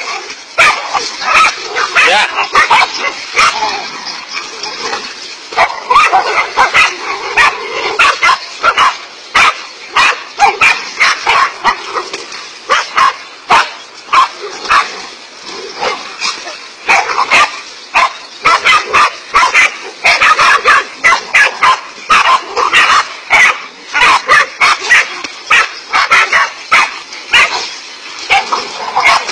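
Several dogs barking continuously at a large snake they have cornered, with sharp barks coming a few times a second.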